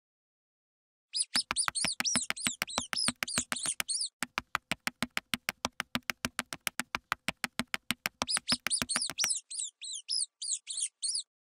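Mouse squeak sound effect: runs of quick, high chirping squeaks over a fast, even train of sharp clicks, about six a second. Both start about a second in; the squeaks drop out for a few seconds in the middle while the clicks go on, then the clicks stop and the squeaks return near the end.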